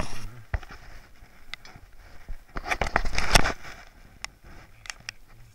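Handling noise on an action camera: scattered knocks and clicks against the housing, with a longer, louder scuffing rustle about three seconds in.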